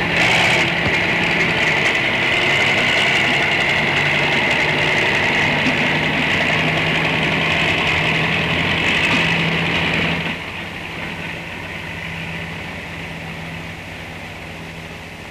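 Farm tractor engine running steadily, dropping away about ten seconds in to leave a fainter hiss.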